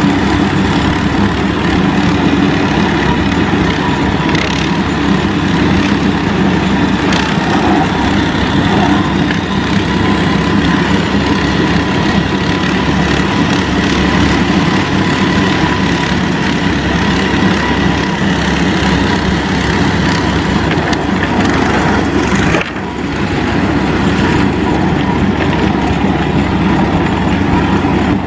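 ZiD "Vyuga" mini snowmobile's engine running steadily, with a brief dip in level about three-quarters of the way through.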